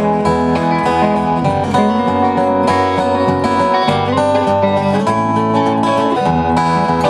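Live country-folk song in an instrumental break between sung verses, with steady guitar strumming carrying the tune.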